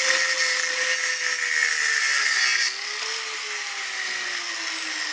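Electric angle grinder grinding metal while trimming a newly pressed-in injector sleeve flush with the face of a D110 tractor cylinder head. About two and a half seconds in, the grinding noise stops and the grinder keeps running with its pitch slowly falling.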